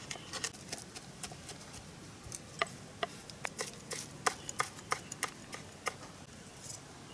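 A cleaver chopping garlic and red chili on a wooden cutting board: sharp, irregular knocks of the blade against the board, about three a second.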